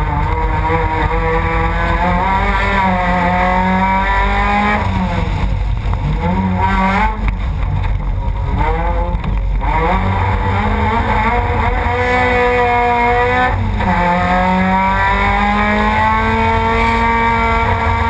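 Rallycross race car's engine heard from on board under hard acceleration: its pitch climbs steadily, then drops sharply at each gearshift or lift, several times over, over a steady rumble of road and tyre noise.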